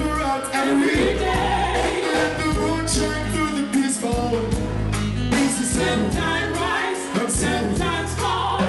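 Live reggae band playing with a male lead vocalist singing into a microphone, over bass, drums, guitar and keyboards.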